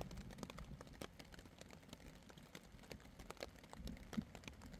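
Faint, irregular ticking of light rain dripping onto a tarp overhead.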